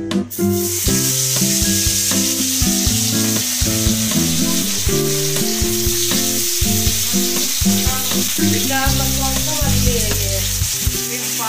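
Bata fish sizzling in hot oil in a kadhai. The sizzle starts suddenly as the fish go in and carries on steadily as they fry.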